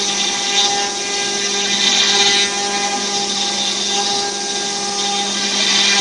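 CNC router spindle running with a small end mill cutting into a wooden board: a steady pitched whine under the hiss of the cut, which swells louder about two seconds in and again near the end.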